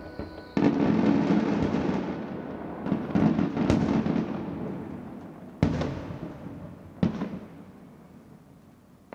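Aerial fireworks: a heavy salvo of shell bursts about half a second in, crackling and booming, a second heavy salvo around three seconds, then two single sharp bangs near six and seven seconds, each followed by a long rumble dying away.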